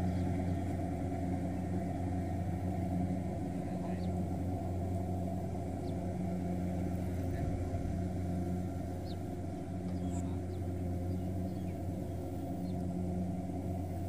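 Kubota DC-70 Plus combine harvester's diesel engine running at a steady working speed while it cuts rice, a constant low hum that does not change pitch. A few faint chirps sound over it.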